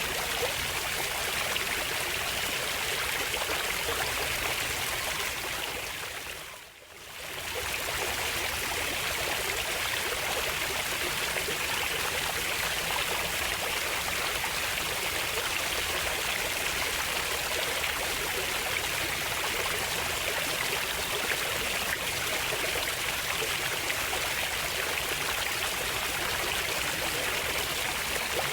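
Steady rushing of flowing stream water, which fades down briefly and comes back up about seven seconds in.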